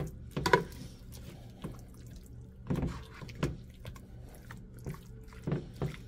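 A metal spoon stirring chunks of pork through thick barbecue sauce in a square pan: wet, sticky squelches and light knocks of the spoon against the pan, coming irregularly about once a second.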